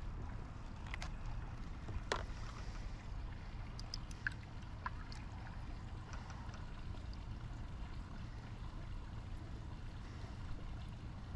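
Steady low rumble with a few light clicks and taps in the first five seconds, one sharper click about two seconds in.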